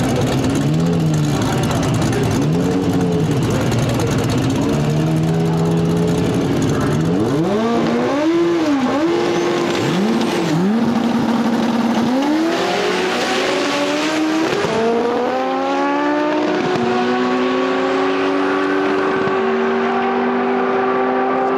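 Corvette's ProCharged 408-cubic-inch LS V8 revving in short blips at the drag-strip starting line, then launching at full throttle down the strip alongside the opposing car. Its pitch climbs and breaks at each gear change, and the high end thins as it pulls away.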